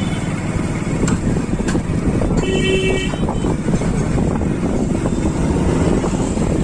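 Road traffic noise with wind buffeting the microphone while moving along a street, and a short vehicle horn toot about two and a half seconds in.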